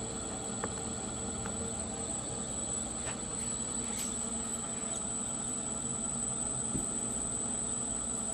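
Steady high-pitched electrical whine over a low hum, with a few faint clicks.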